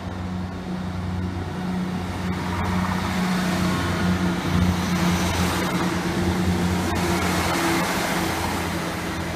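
Class 158 diesel multiple unit running past, its underfloor diesel engines droning steadily, with wheel-on-rail noise building from about three seconds in.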